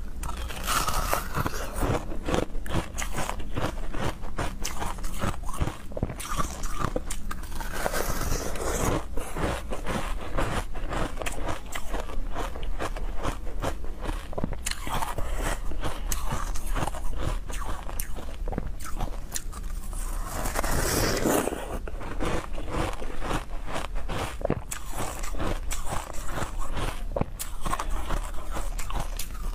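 Close-miked crunching and chewing of a block of green frozen milk ice, a rapid, continuous stream of sharp crackling bites.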